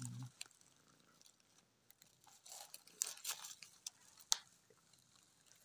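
Faint wet clicks and soft crackles of cats licking, with a little rustling of straw, grouped about two and a half to three and a half seconds in and once more a second later.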